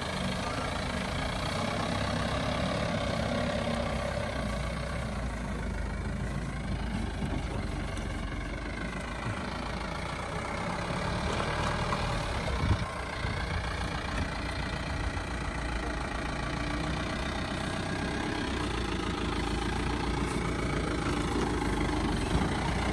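Mahindra Bolero 4x4 pickup's engine running at low revs as the truck crawls over rough ground, its pitch rising and falling a couple of times. A single thump sounds about halfway through.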